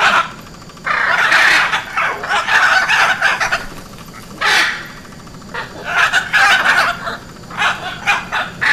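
Hyacinth macaw calling: a run of loud, harsh squawks, several of them drawn out for a second or more, with a short single squawk about halfway through.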